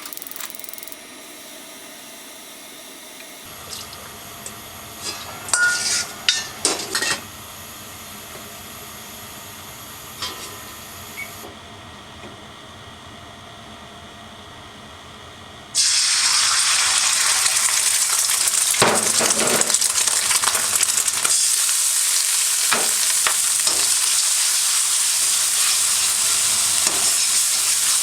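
A few clinks and knocks of cookware. About sixteen seconds in, food sizzles loudly in hot oil in a hand-hammered iron wok, starting suddenly and staying steady, with a few sharp clinks of a utensil against the wok.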